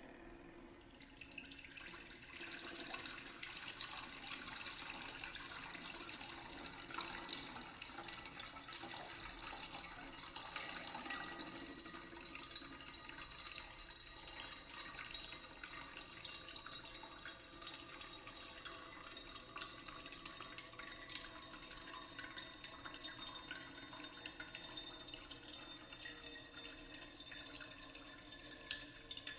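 Running water trickling and splashing steadily, with many small drips and plinks, processed as 8D audio that pans around the listener's head.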